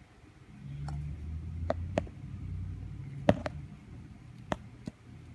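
Handling noise from a speaker's packaging and parts: a low rumble with half a dozen light, sharp clicks and taps.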